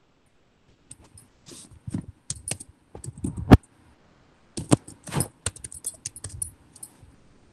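Typing on a computer keyboard: two bursts of quick, uneven keystrokes with a short pause between them, entering a password.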